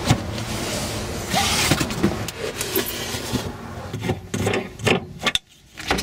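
Hard plastic cargo-floor panels of a Toyota RAV4 being lifted and moved aside to reach the spare tire: a sliding rustle about a second and a half in, then a string of knocks and clicks.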